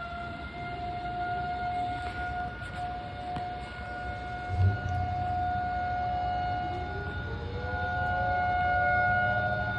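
Outdoor tornado warning sirens wailing on a steady tone, with a second siren winding up in pitch from about two-thirds of the way through. A low rumble runs underneath, with a brief low thump about halfway.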